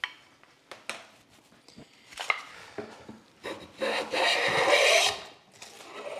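Budget metal bench plane rubbed with a stick of wax and set down with a few clicks, then pushed through one long stroke on cherry, a rasping cut about a second and a half long about halfway in. The cut is uneven, which the woodworker puts down to a poorly supported blade flexing: it digs in and bounces out.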